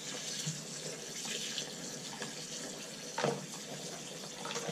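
Water running from a garden hose into a plastic bucket of dried sugar beet pulp and soybean meal, soaking the lamb feed. A brief knock about three seconds in.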